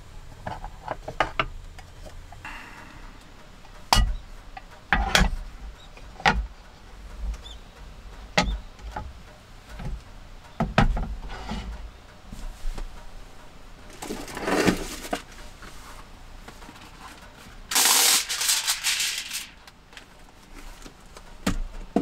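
Handling noises of a metal hot sandwich maker: a series of clicks and knocks as it is taken off its wall hook, set down on a wooden table and opened on its hinge. A sheet of paper rustles, loudest for a second or two about three quarters of the way in.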